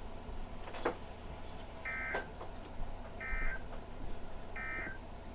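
EAS/SAME digital data bursts from a NOAA Weather Radio broadcast: three short, identical buzzy bursts about 1.3 seconds apart, the end-of-message code that closes the weekly test. A sharp click of radio static comes before the first burst.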